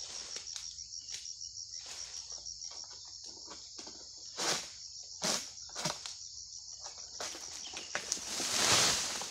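Long-pole sickle cutting into an oil palm crown: three short sharp cutting sounds about halfway through, then near the end a louder rushing rustle as the cut fruit bunch drops through the fronds. Insects chirr steadily throughout.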